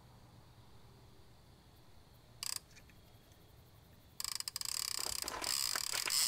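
Quiet night air with a brief rustle about two and a half seconds in, then footsteps crunching over gravel and grass, coming in loud about four seconds in and continuing.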